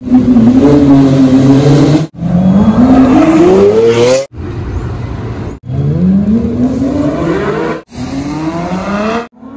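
Supercar engines revving and accelerating hard, in about six short clips cut together, each a rising engine note that breaks off suddenly. Among them is a Lamborghini Aventador S's V12 pulling away.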